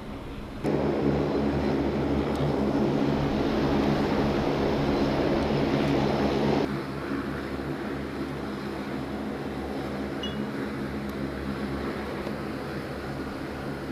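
Aircraft engines running on the flight line: a steady, droning hum with a hiss over it. The sound jumps louder and brighter about a second in, then drops back just as suddenly about halfway through.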